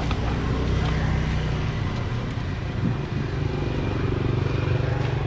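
A motor vehicle engine running steadily with an even low hum, with street-noise hiss behind it.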